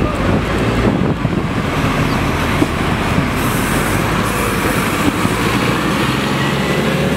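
City transit bus pulling away and driving past close by, its engine running steadily.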